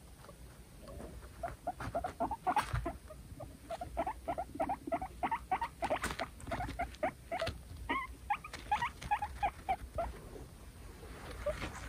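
Two guinea pigs fighting for dominance: a fast run of short squeaks, several a second, mixed with sharp clicks of teeth chattering. The squeaks go higher in pitch for a couple of seconds near the end.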